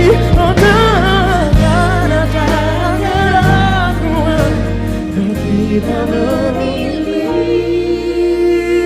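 Live pop ballad music: a band plays under a sung melody that bends and wavers in pitch, settling about seven seconds in onto one long held note with vibrato.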